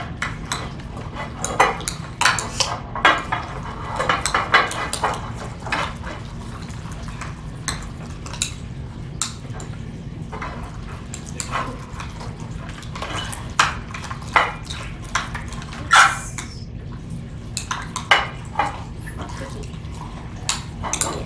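A metal spoon and stirring rods clinking and scraping against glass beakers in irregular quick taps while thick slime mixture is stirred. A low steady hum lies underneath.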